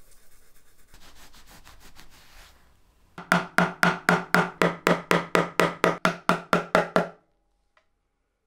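A hand rubbing over an engraved brass nameplate on a wooden board, then a small hammer tapping the pins of the brass nameplate into the game's wooden case: about sixteen quick, even taps, some four a second, each with a short hollow knock, stopping suddenly.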